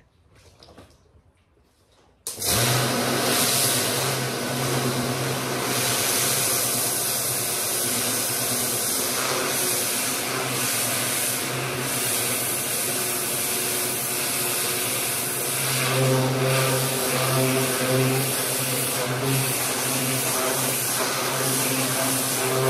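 Pressure washer running: a steady motor hum under the hiss of the water jet blasting muck off a shed floor. It starts suddenly about two seconds in, after near quiet.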